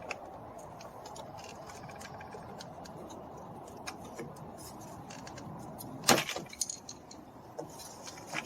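Small scattered clicks and metallic clinks of hand tools and screws working on a car door panel, with a louder sharp knock about six seconds in and a few lighter knocks after it.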